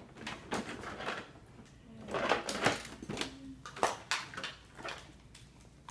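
Hard plastic parts of a Barbie camper van toy handled and shifted by hand: a run of clicks, knocks and short clatters.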